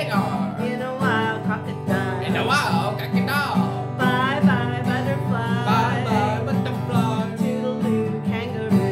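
A woman singing a children's goodbye song, accompanying herself by strumming an acoustic guitar.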